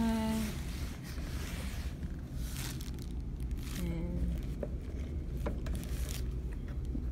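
Clear plastic wrapping on a new air fryer crinkling and scraping in irregular bursts as the fryer is handled by its basket handle.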